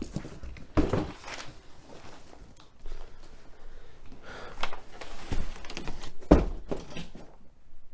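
A few dull thuds and knocks from handling the parts and packaging, spaced out, the loudest about six seconds in, over faint room noise.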